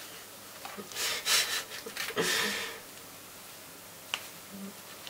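Small paper packet being handled, torn open and emptied over a plastic mixing bowl: two scratchy paper rustles about a second and two seconds in, then a single faint click near the end.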